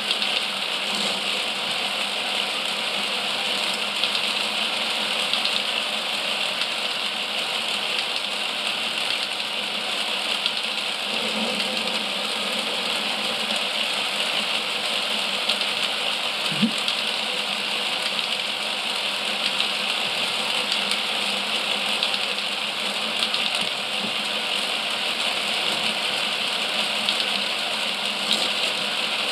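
Motorised Mould King 11012 brick-built roller coaster running: its electric motor and drive keep up a steady mechanical whirr and rattle.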